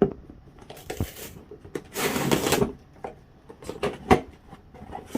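A cardboard shipping box being opened by hand. There are sharp knocks and handling noises, and two tearing sounds: a short one about a second in and a longer one about two seconds in.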